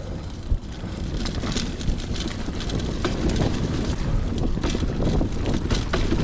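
Mountain bike rolling fast along a dirt trail. Wind buffets the microphone, and the tyres and frame give off scattered clicks and rattles. It gets louder over the first few seconds.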